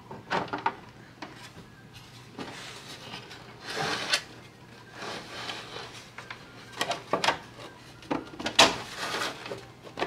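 Plastic top of a Bilantan BirdHI bird feeder being pushed and worked onto its plastic hopper: scraping and rubbing of plastic on plastic, then several sharp clicks and knocks in the second half.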